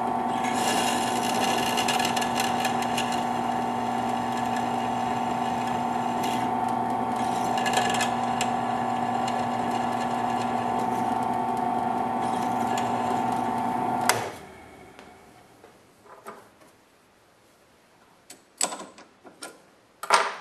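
Drill press running with a steady motor hum while a 3/32-inch bit bores halfway into a set screw spinning in the chuck. The motor cuts off about two-thirds of the way through and winds down quickly, followed by a few light clicks and knocks.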